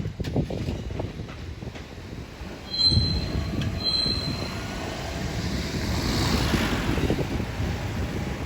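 Local train rolling slowly into the station, a low rumble with its wheels knocking over rail joints. Two short high-pitched wheel squeals come about three and four seconds in, and a hiss swells around six seconds in.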